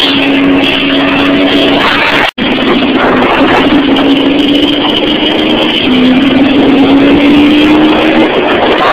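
Dirt bike engine running under way, its pitch climbing steadily, dipping once about six seconds in and climbing again, with heavy wind noise on the microphone. The sound cuts out for an instant about two seconds in.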